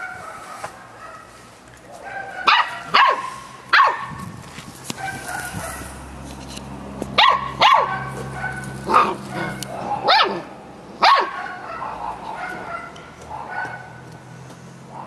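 Samoyed puppy barking and yipping, about eight sharp high barks in loose clusters, with whiny yips between them: the talkative 'chatter' of a puppy trying to get another dog to play.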